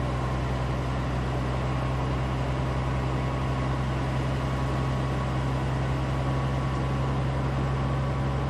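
A motor running at steady speed: an even low drone with a faint high whine over it, unchanging throughout.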